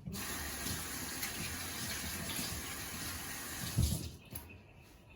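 Steady rush of running water, which stops about four seconds in, with a short low knock just before it ends.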